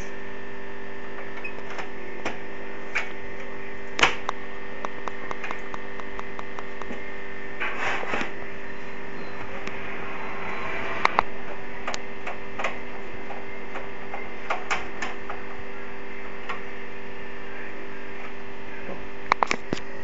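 Steady electrical hum, with scattered clicks and knocks as a PCI expansion card is handled and fitted into a motherboard slot: a short clatter about eight seconds in and sharp clicks about eleven seconds in and near the end.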